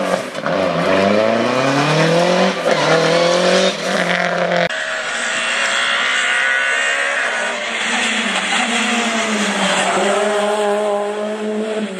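Rally car engines at full power: the first engine's pitch climbs and then holds high. After an abrupt change about five seconds in, a second engine runs at a steady high pitch that wavers and drops near the end.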